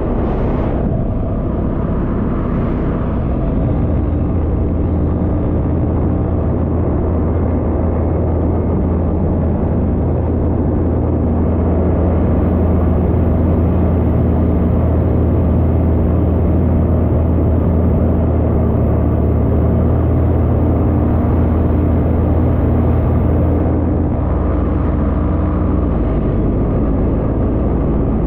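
Paramotor engine running steadily in flight, with wind rushing past the microphone; the engine note eases off a little near the end.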